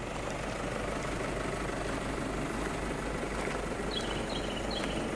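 Steady outdoor background noise with a constant low hum, and a bird giving a few short high chirps near the end.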